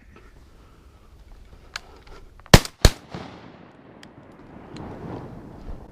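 Two shotgun shots fired at ducks, a third of a second apart, each followed by a rolling echo.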